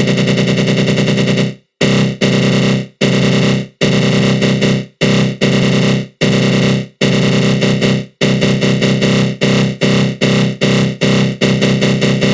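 Synthesized attack growl from the GMS synth with a flanger effect: a continuous growling tone. About a second and a half in it breaks into repeated bursts, which grow shorter and quicker toward the end.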